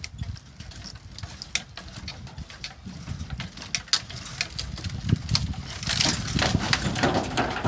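Dead tree limbs and twigs crackling and rustling as the tree is pulled and pushed by hand, with irregular clicks that grow busier and louder toward the end. Wind rumbles on the phone microphone underneath.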